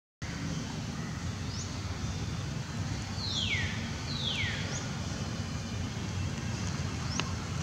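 Outdoor ambience of steady low wind noise on the microphone. About three seconds in come two quick high chirps that fall in pitch, with a few fainter short chirps scattered around them and a single click near the end.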